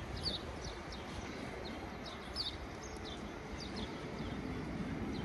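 Small birds chirping in short, scattered chirps, one or two a second, over a steady low outdoor rumble.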